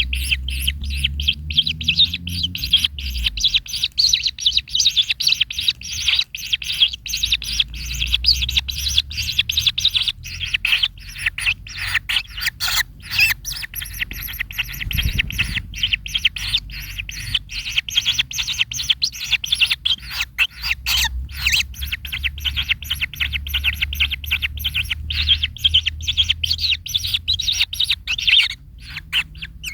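Kingfisher calling in a long, rapid chattering run of short high notes that barely pauses, thinning out near the end.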